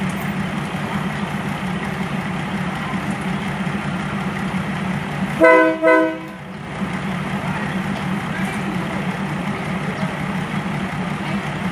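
Train horn giving two short blasts back to back, a chord of several pitches, a little over five seconds in, over a steady low hum.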